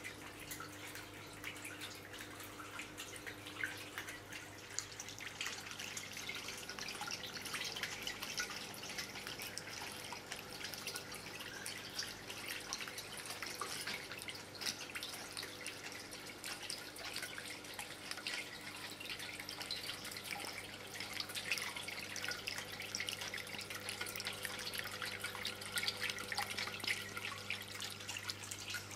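Water running down an Azul Macaubas quartzite fountain column and splashing into its stone basin: a steady, dense trickle of fine drips, with a faint steady low hum underneath.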